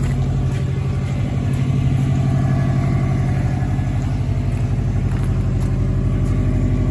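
Subaru Impreza Turbo 2000's turbocharged flat-four engine idling steadily from a cold start.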